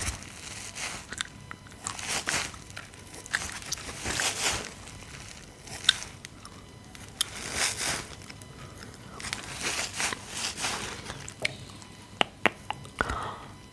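Wet kitchen sponge scrubbing across the microphone in repeated strokes, each a crunchy swish of about half a second to a second, with scattered sharp crackling clicks.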